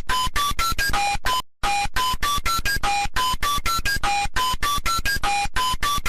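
Emergency Alert System (EAS) style alarm tone: a quick run of short electronic beeps stepping up in pitch, then one lower note, the pattern repeating about every second and a quarter. It cuts out for a moment about a second and a half in.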